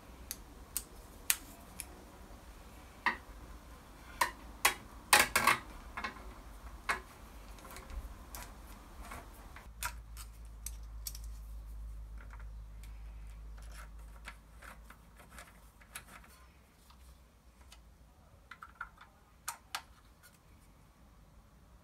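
Scattered small clicks and taps of a hex key and metal parts as a mist-coolant mixer block is screwed onto a CNC machine's carriage, with a quick run of sharper clicks about five seconds in.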